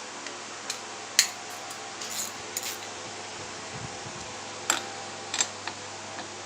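A few sharp metallic clinks and taps from a spark plug socket and wrench being handled on a chainsaw. The loudest come about a second in and twice near the two-thirds mark, over a steady background hum.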